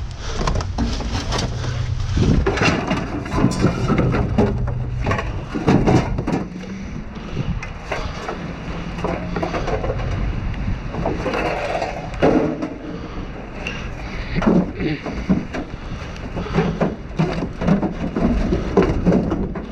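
Rummaging and stepping through broken, crumbling debris inside a dumpster: irregular crunching, cracking and clattering knocks throughout.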